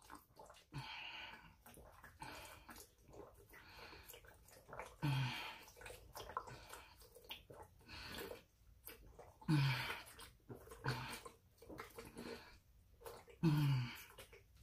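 A person gulping water from a plastic water bottle, drinking it down fast in repeated swallows with breaths between. A louder gulp with a low, falling throat sound comes about every four seconds.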